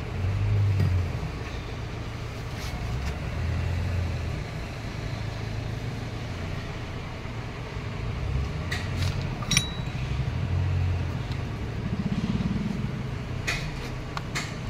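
A low, steady rumble of motor vehicles swells and fades several times, loudest about half a second in. Metal hand tools clink a few times against the compressor's clutch hub: once with a short ring just past halfway, and several quick clicks near the end.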